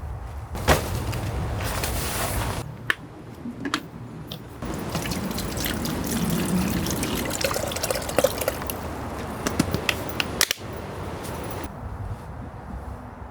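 Liquid pouring and splashing, with a few sharp knocks and clicks.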